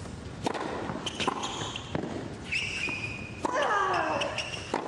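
Tennis ball being struck with rackets in a rally on a hard court: a sharp hit or bounce about every second. Tennis shoes squeak briefly on the court around the middle, and near the end a voice slides down in pitch.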